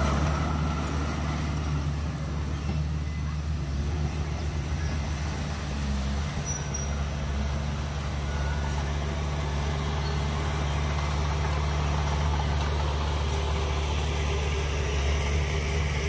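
Heavy diesel engine of earthmoving machinery running steadily, with a slight change in engine note about six seconds in.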